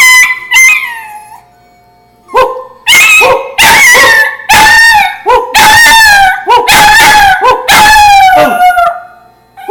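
Dog howling close up: a short call ending just after the start, then a pause, then a run of six or seven loud drawn-out howls, each sliding slightly down in pitch, the last the longest.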